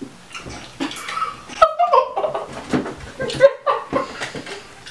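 Two people's wordless vocal reactions: laughing, with gagging noises behind a hand over the mouth, in short broken bursts, a reaction to a foul-tasting jelly bean.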